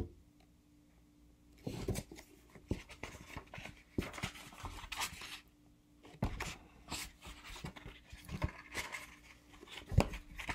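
Hardcover book being handled and turned over in the hands: irregular rustling and scraping, with a few soft knocks, the loudest about six seconds in and near the end.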